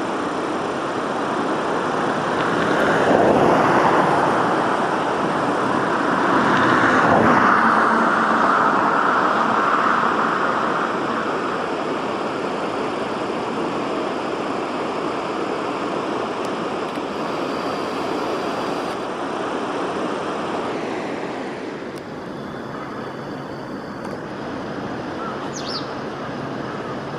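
Road traffic: a steady rush of passing vehicles, swelling as vehicles go by about three seconds in and again around seven seconds in, easing slightly near the end.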